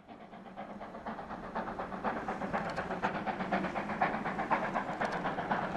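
Class 50 steam locomotive 50 3708, a two-cylinder 2-10-0, working hard as it approaches. Its exhaust chuffs in quick, even beats with a steam hiss, growing steadily louder.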